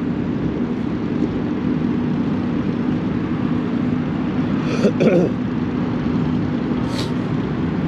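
Steady low hum of car engines and traffic, with a short sharp click about seven seconds in.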